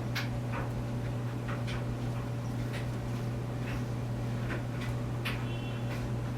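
Steady low hum with a few faint higher steady tones above it, and light irregular clicks and ticks scattered through it.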